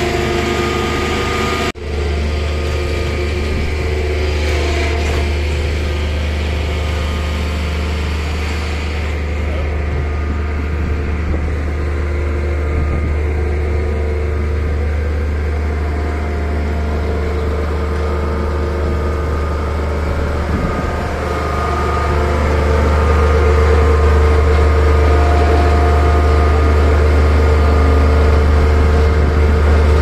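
Heavy engine of site machinery running steadily with a deep hum. It briefly cuts out near two seconds in and grows louder a little after twenty seconds in.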